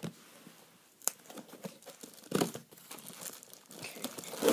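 Packaging of a boxed toy pool table being handled and opened: crinkling and tearing rustles with scattered small knocks, a louder rustle about two seconds in.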